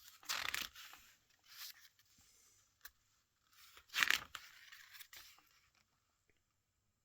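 Paper pages of a CD booklet being turned and handled: two louder swishes, one just after the start and one about four seconds in, with softer rustles between.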